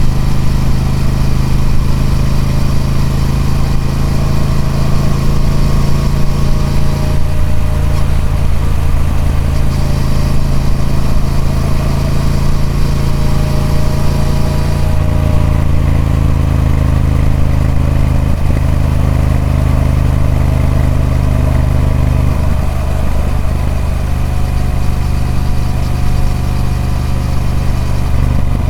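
Triumph Speed Twin 1200's 1200cc parallel-twin engine running steadily through its stock exhaust. Its pitch steps to a new level a few times, about a quarter, half and three quarters of the way through.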